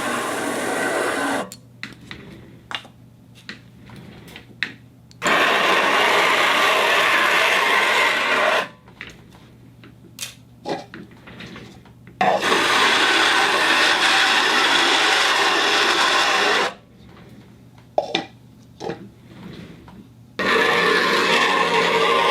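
A turntable running with a noisy, rubbing whir in stretches of three to four seconds, stopping in between, where only a few small clicks and a faint low hum are left. The whir starts and stops abruptly four times.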